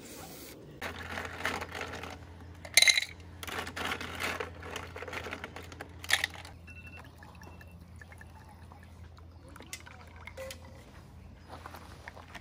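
Liquid being poured in uneven spurts through the first half, with two sharp clinks along the way; after that only small faint handling sounds over a steady low hum.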